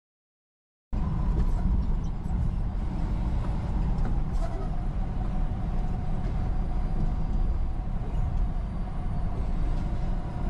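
Digital silence for about a second, then the steady low rumble of engine and road noise inside a truck's cab as it drives along a highway.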